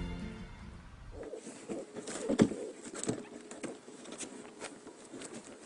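Background music fading out, then rustling and crinkling of newspaper bedding in a wooden whelping box, with scattered sharp clicks and taps.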